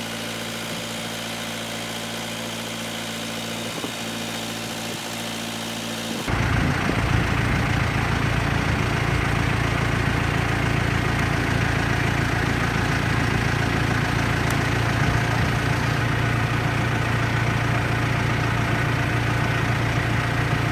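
JCB backhoe loader's diesel engine idling, then about six seconds in it suddenly runs louder and heavier and holds steady as the machine is driven onto the test.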